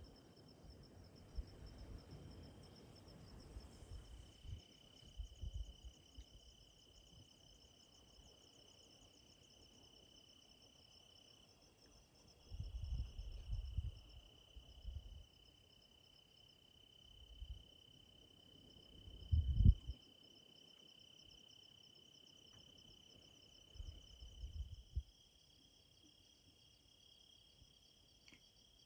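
Insects chirring steadily: one high held note with a faster pulsing trill above it. A few short low rumbles come and go on the microphone, the loudest about two-thirds of the way through.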